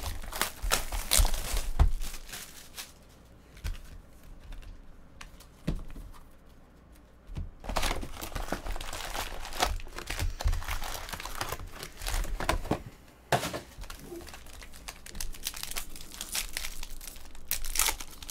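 Cardboard hobby box being opened and foil-wrapped trading card packs handled, crinkling in irregular bursts, with a quieter stretch in between; a foil pack is torn open near the end.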